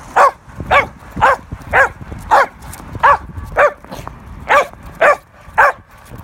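A small dog yipping in short, high-pitched barks, about two a second, each rising and falling in pitch, with a brief gap near the middle. Under them run faint low knocks and scrapes from a heavy rock being pushed over concrete.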